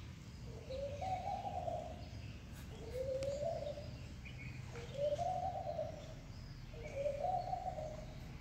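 A bird calling: four hooting, cooing calls about two seconds apart, each rising in pitch and then holding, over a steady low background hum.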